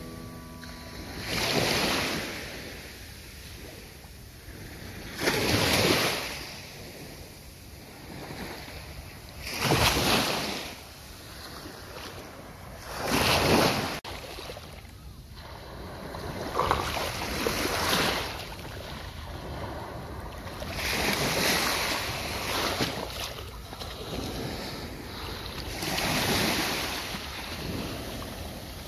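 Small sea waves breaking and washing up a sandy beach. The surf swells and fades about every four seconds.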